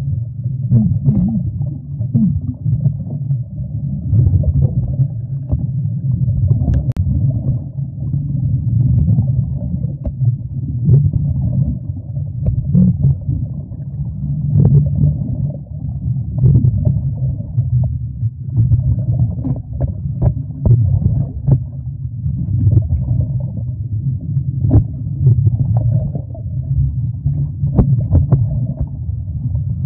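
Muffled underwater rumble heard through a camera underwater, with frequent small knocks and clicks from a scuba diver working a hand scraper against a yacht's hull.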